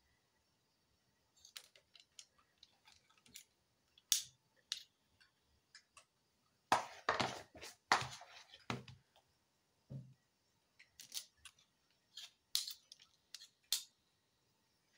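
Metal tablespoon scraping and clicking against a mixing bowl as soft cookie dough is scooped out, in scattered short strokes with a busier stretch about halfway through.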